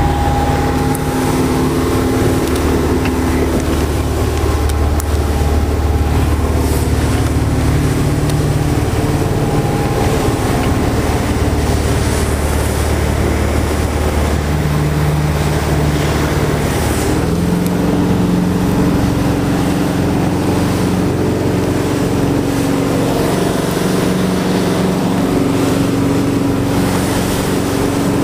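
Cabin cruiser's engine running steadily as the boat moves across open water, with wind and water noise. About seventeen seconds in, the engine note shifts higher.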